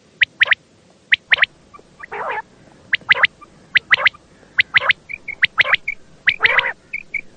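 Quail calling: quick, sharp notes in pairs and threes, about one group a second, with a few harsher, rougher calls in between and short high peeps near the end.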